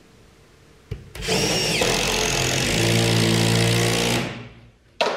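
Handheld electric power tool worked against the boat's wooden hull: it starts about a second in, runs for about three seconds with its whine gliding at first and then holding a steady lower pitch, and winds down. A click comes just before it starts and another just after it stops.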